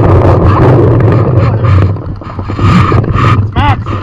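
Heavy wind and handling rumble on a body-worn camera microphone as a paintball player moves up to a bunker, with scattered sharp pops of paintball markers firing across the field.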